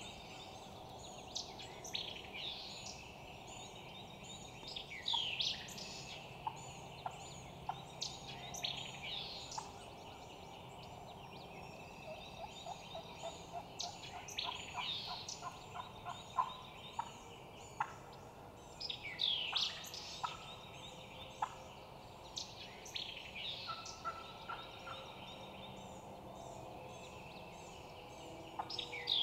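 Eastern wild turkey gobbling in rapid runs of notes, with songbirds chirping and whistling around it.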